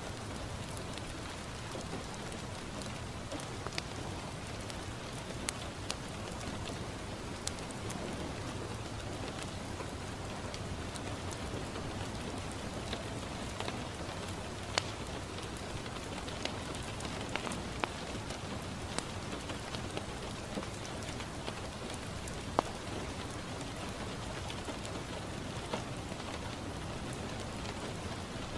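Steady rain falling on a window, with the scattered sharp pops and crackles of a wood fire burning in a fireplace.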